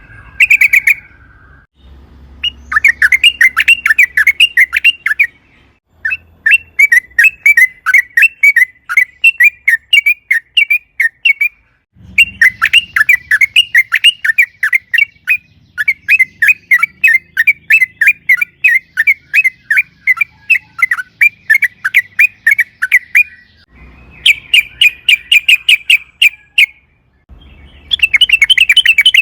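Yellow-vented bulbul (trucukan) singing long, fast runs of short bubbly notes, about five a second. The runs come in bursts separated by short pauses, and the longest lasts about eleven seconds.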